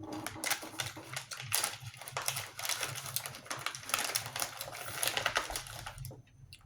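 A crunchy snack being chewed close to the microphone: dense, irregular crackling crunches that come in small bunches for about six seconds, then stop.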